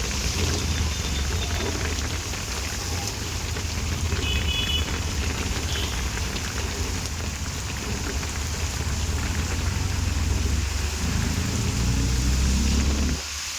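Heavy rain falling steadily on hard surfaces, over a strong low rumble. A low droning hum joins in near the end and cuts off suddenly.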